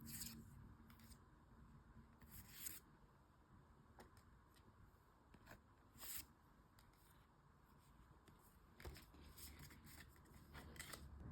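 Faint rustling and scraping of handling during an unboxing, in a few short, scattered bursts with a denser cluster near the end, over a quiet background.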